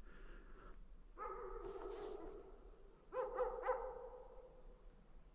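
A dog howling faintly in two long drawn-out calls, the first starting about a second in and the second about three seconds in.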